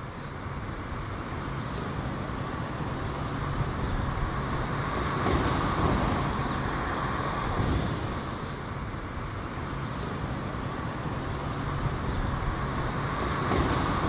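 Steady outdoor street ambience: a low rumble of distant road traffic that swells a little about five seconds in and again near the end.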